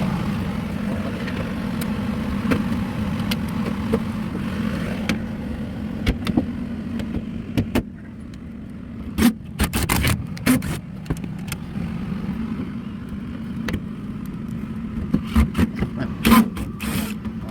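Air-conditioning equipment running with a steady low hum, with scattered knocks and clatter from handling, clustered about halfway through and again near the end.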